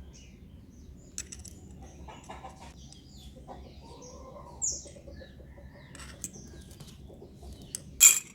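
Light clicks and rattles of the small parts of a disassembled motorcycle horn being handled, with one sharp clack near the end. Faint animal calls in the background.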